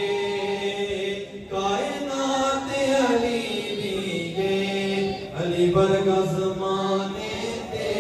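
A voice chanting a devotional kalam in praise of Hazrat Ali in naat style. The notes are long and held, and the melody bends up and down between phrases.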